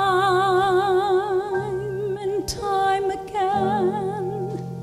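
A woman singing two long held notes with a wide, even vibrato, with a short break between them, into a handheld microphone. A small band with drums and piano plays low sustained notes underneath.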